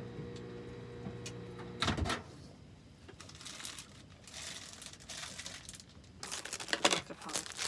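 Microwave oven running with a steady hum, which stops about two seconds in with a loud clunk as the door is opened. Light handling follows, and from about six seconds in a plastic bag crinkles as wrapped bread is handled.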